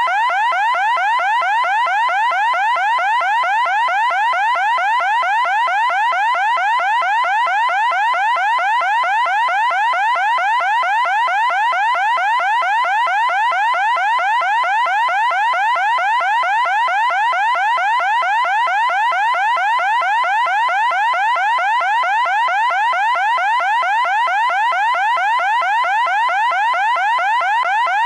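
Loud electronic siren wailing in rapid, repeated rising sweeps, several a second, keeping an even pitch and level without a break.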